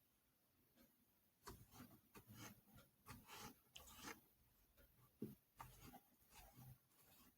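Faint, irregular light scraping and rubbing from hands working with food and utensils in the kitchen, starting about a second and a half in.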